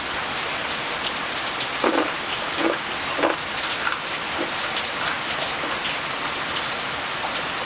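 Steady rain falling, with a few short, louder sounds between about two and three and a half seconds in.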